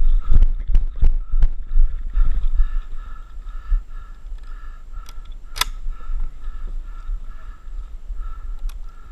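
Running footsteps thudding for the first couple of seconds, then a 12-gauge shotgun being handled and loaded at a table, with small metallic clicks and one sharp click about five and a half seconds in. A pulsing high-pitched tone repeats about two or three times a second behind it.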